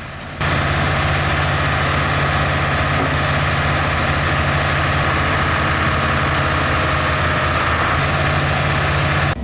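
Engine of a piece of heavy machinery running steadily at constant speed, with a loud steady drone. It cuts in abruptly about half a second in.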